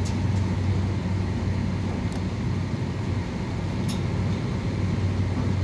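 Steady low machinery hum, with a few faint light clicks from a wrench working a flare nut on a filter-drier fitting.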